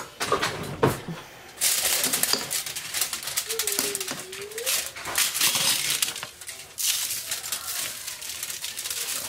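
Aluminium foil crinkling and rustling under hands that are handling a whole fish on it, a busy crackle after a few separate taps in the first second and a half.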